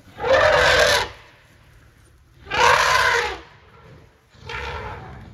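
African elephant trumpeting three times, loud harsh blasts about two seconds apart, the last one weaker: an elephant warning off African wild dogs that are harassing it.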